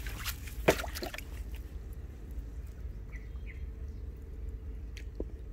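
Small fish splashing in shallow water inside a cut-open plastic jerrycan, with one sharp slap about a second in and a few lighter splashes and clicks.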